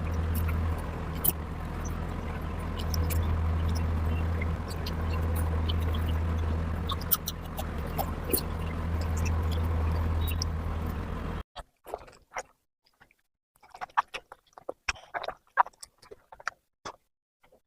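Close-up eating sounds of a person eating oily mutton curry: scattered wet smacks and mouth clicks over a steady low hum. About eleven and a half seconds in, the hum cuts off suddenly, leaving only the smacking and clicking.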